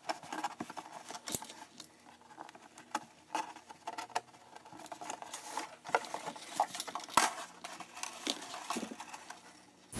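Faint, irregular clicks, taps and rustling of hands working on a cardboard cereal box.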